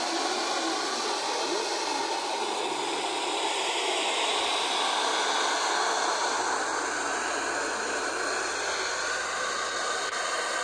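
Steady FM static hiss from a portable receiver's speaker, tuned to 89.00 MHz where almost no signal is received.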